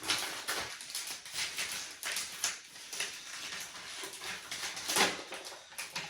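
Rustling and crinkling of a paper instruction leaflet being opened and handled, in quick irregular crackles, with a sharper, louder crackle about five seconds in.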